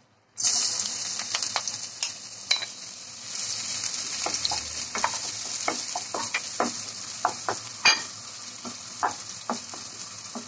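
Sliced onion, garlic and green chillies hitting hot oil and sizzling, starting suddenly about half a second in. A wooden spatula stirs them, scraping and tapping against the pan, with one sharper knock about eight seconds in.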